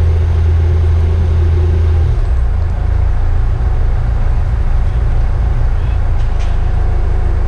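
Catamaran's inboard diesel engine running at low revs for close-quarters manoeuvring, a steady low drone that drops in level and changes note about two seconds in.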